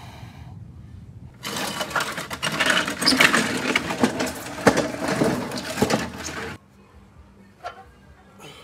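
Weighted sled dragged by a harness over gravel, making a loud rattling scrape full of rapid clicks and knocks. It starts about a second and a half in and cuts off suddenly about two seconds before the end.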